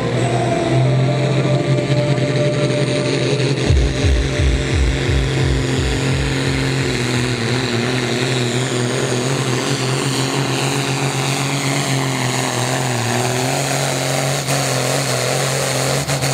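Turbocharged International pulling tractor's engine running flat out under full load as it drags a weight-transfer sled, a loud steady drone with a high whine that slowly falls in pitch. A spell of heavy low pulsing comes a few seconds in.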